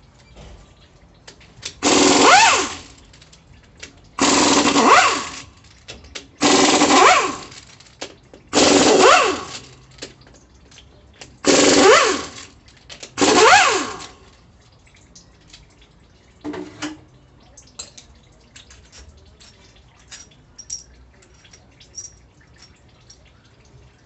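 Impact gun hammering in six short bursts of about a second each, with a rising and falling whine in each, spinning out the front-pump bolts of a 4L60E automatic transmission. Light clicks and one short knock follow.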